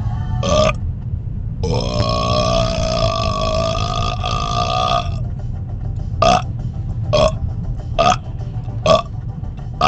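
A man burping: one short burp, then one long drawn-out burp lasting over three seconds, then a string of five short burps a little under a second apart. Underneath is the steady low rumble of a car in motion.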